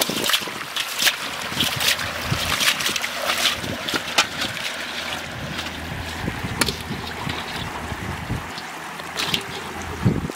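Shallow river water running, with wind on the microphone. Many small splashes and knocks throughout come from live fish flapping in a metal bowl of water while it is handled.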